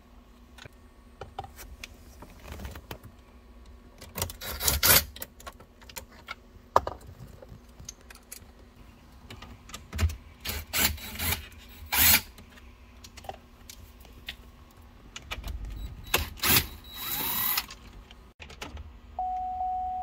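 Cordless power driver spinning out the centre-console bolts in several short bursts, with small clicks of tools and trim in between. A steady single tone starts near the end.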